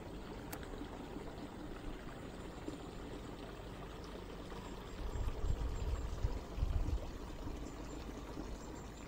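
Running water: a steady rush, with low rumbles of wind on the microphone between about five and seven seconds in.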